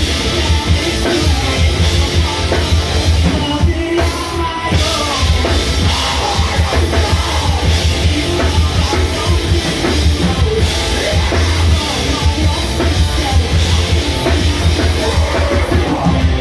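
Live heavy rock band playing loudly: distorted electric guitar, a drum kit and a vocalist singing into a microphone, with a heavy low end.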